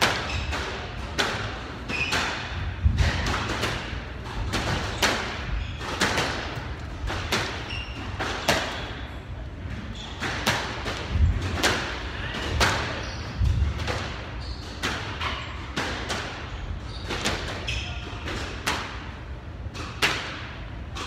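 Squash rally: the ball cracking off rackets and the court walls in a steady run of sharp knocks, roughly one every half second to second, echoing in the court. A few heavier low thuds come in among them, and there are some short high squeaks.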